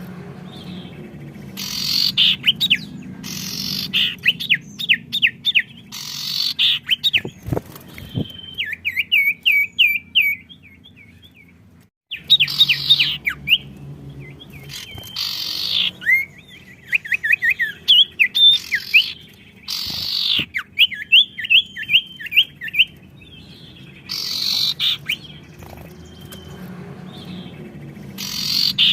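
Songbirds singing in lively bursts and answering one another: rapid runs of sharp chirps and quick buzzy trills, with a brief break about halfway through.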